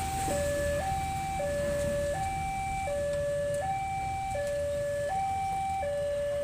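Electronic railroad level-crossing warning alarm sounding a steady two-tone hi-lo signal, alternating a higher and a lower tone about every three quarters of a second, over a low traffic rumble.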